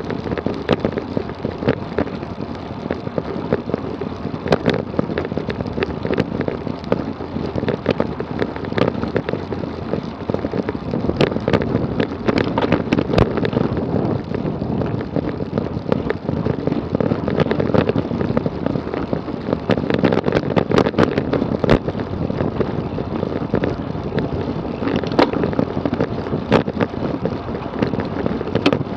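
Road bike at speed: steady wind rush on the microphone with tyre and road noise, broken by frequent sharp clicks and rattles.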